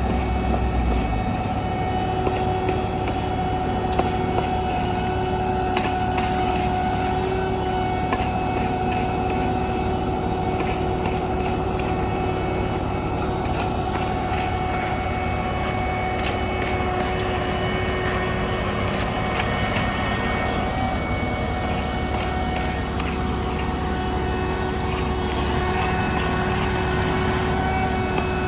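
Heavy diesel paving machinery running steadily, a low rumble with a constant steady whine over it.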